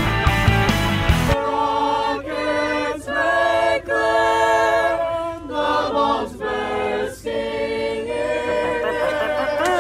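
Rock backing music cuts off abruptly about a second in, and a choir takes over, singing a cappella in held chords that change every second or so.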